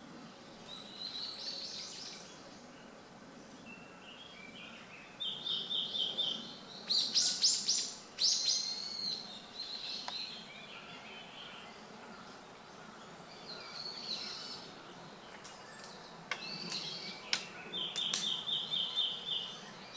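Red-billed leiothrix (Pekin robin) giving its shrill calls from cover in several bouts: rapid runs of repeated high notes and sharp, piercing notes, loudest about seven to nine seconds in.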